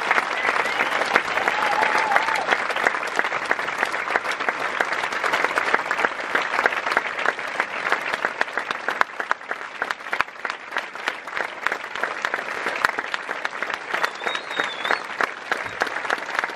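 Theatre audience applauding, a dense, steady mass of clapping from a large crowd.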